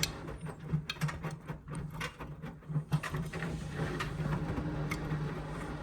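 Indesit washing machine draining after the main wash: the drain pump hums steadily, with irregular light clicks and knocks.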